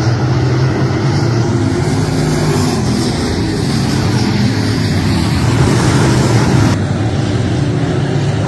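Race car engine running steadily at a fairly constant pitch, loud and continuous.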